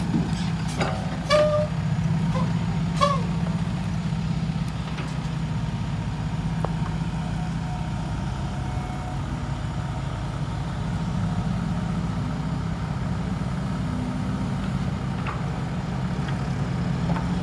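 Heavy diesel engines running steadily as an excavator loads soil into a dump truck, with a few short, sharp knocks in the first three seconds.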